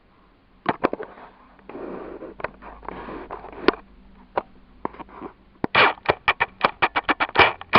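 Plastic model-kit parts being handled. Scattered sharp clicks and a stretch of rustling come about two seconds in, then a quick run of a dozen or so clicks and rattles near the end.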